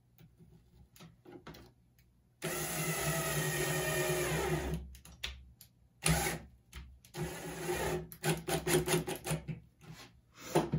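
Cordless drill driving a small screw through a metal D-ring bracket into a wooden board: a few faint clicks, then a steady run of about two seconds, a pause, and a second run from about six seconds in that breaks into quick short on-off pulses.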